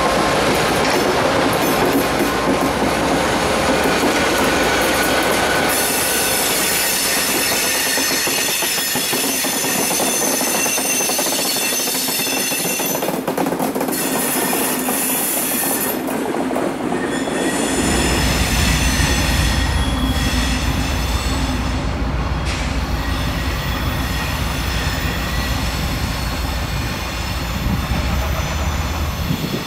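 Diesel locomotives rolling by and moving off, their wheels squealing in high thin tones over the track noise. About two-thirds of the way in, the deep steady engine rumble of locomotives creeping around a sharp curve comes in, with wheel-flange squeal still above it.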